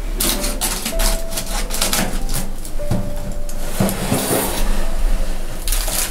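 Freshly roasted leg of lamb sizzling and crackling on a foil-lined tray, mixed with clicks of the metal oven rack, as it is drawn out of a countertop toaster oven. The crackle is dense and irregular, eases off past the middle and comes back briefly near the end.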